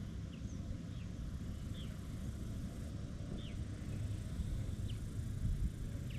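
Faint short chirps from a bird, each sliding down in pitch, coming irregularly about once a second over a steady low rumble.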